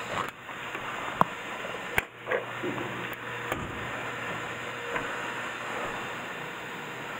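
Steady factory background hum and hiss, with a couple of sharp clicks about one and two seconds in.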